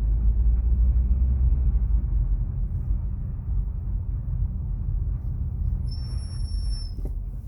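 Haval F7x brakes squealing: one steady high-pitched squeal, about a second long, near the end, over the low rumble of the moving car. The car is nearly new, at about 3,000 km, and the dealer counts this squeal as normal.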